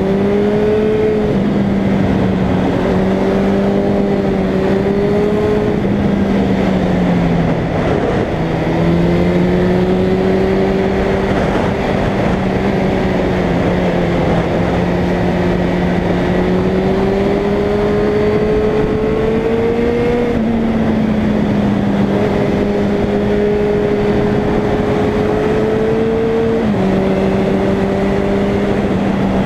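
Suzuki Bandit's inline-four engine running under way at steady road speed, its pitch rising and falling gently through the bends, with a brief dip and drop in pitch about eight seconds in like a gear change and another step near the end. Wind rush over the onboard microphone runs underneath.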